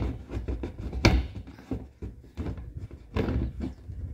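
Irregular hollow knocks and thuds of a PVC pipe elbow being handled and bumped against the inside of an empty plastic IBC tank, the loudest about a second in.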